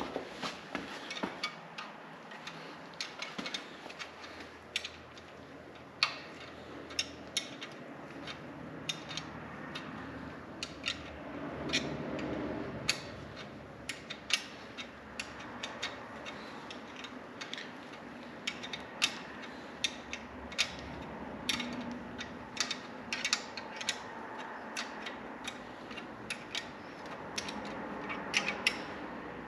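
Ratchet wrench clicking in short, uneven strokes as a bolt is tightened down.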